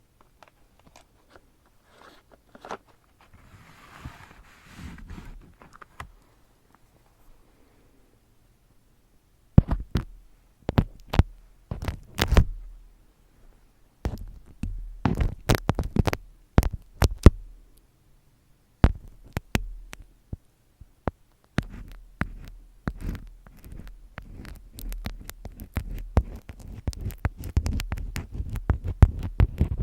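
Close-miked ASMR handling sounds: a faint soft rustle, then from about a third of the way in, sharp irregular taps and clicks that thicken into dense crackling near the end.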